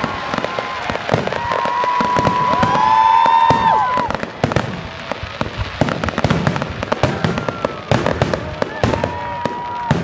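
Rapid crackling pops with several whistling tones that glide up, hold steady and drop away. The longest whistle comes about two seconds in and another near the end.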